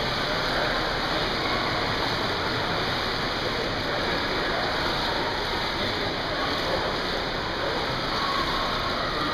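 Steady wash of splashing water from several swimmers doing lengths in an indoor pool, with no single stroke standing out.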